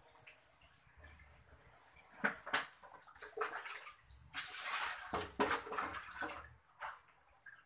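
Pots and pans being washed by hand in a basin of water: two sharp knocks of cookware about two seconds in, then water sloshing and splashing in bursts.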